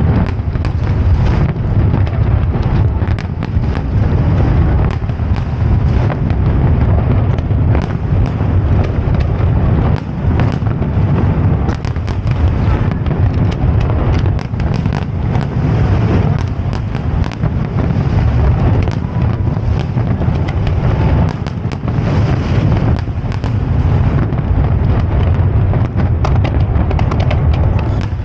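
Aerial fireworks display: a dense, unbroken barrage of shell bursts and crackle, with many bangs overlapping every second over a low rumble.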